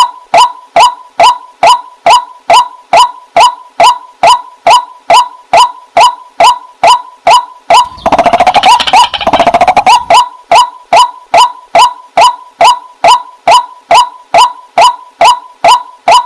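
Waterhen calling: a steady, even series of short, sharp notes, about two and a half a second, each with a ringing tone. About eight seconds in, a harsher, faster run of falling notes breaks in for some two seconds before the even series resumes.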